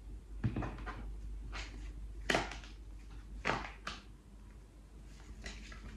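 Tarot cards being gathered from the table and handled in the deck, heard as about six short papery swishes, the strongest a little over two seconds in and about three and a half seconds in.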